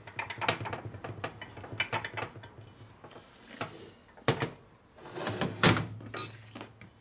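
Clicks, taps and clunks of a bare aluminium Harley-Davidson Sportster engine case being handled and turned over on a workbench. Two sharp knocks, about four and five and a half seconds in, are the loudest.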